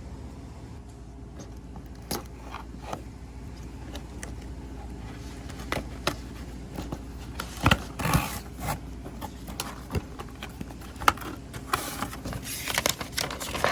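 Packaging being handled while a boxed model plane is unpacked: scattered clicks, scrapes and rustling, busier from about halfway through.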